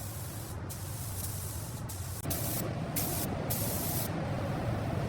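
Spray gun hissing in several short bursts, about a second long each, over a steady low hum, as coating is sprayed onto the airframe.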